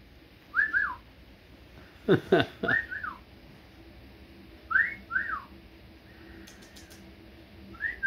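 A person whistling a two-note phrase to pet birds, each note rising then falling, repeated four times. About two seconds in there is a short, louder downward-sweeping sound.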